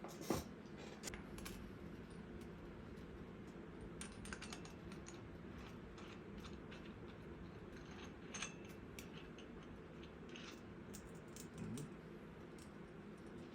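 Scattered light clicks and taps over a steady low hum, the sharpest click just after the start.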